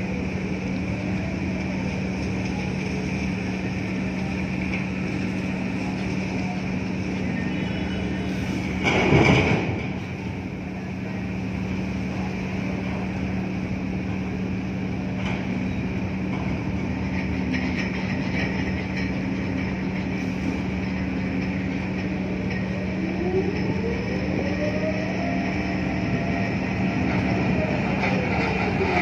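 Steady low drone of ship engines and machinery, with a constant hum, while a container ship is being brought alongside by a tug. About nine seconds in, a brief loud whoosh rises above it.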